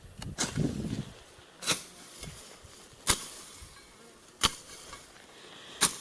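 Five sharp swishes, about one every second and a half: a long hand tool slashing through tall nettle stems, with a rustle of the plants about half a second in.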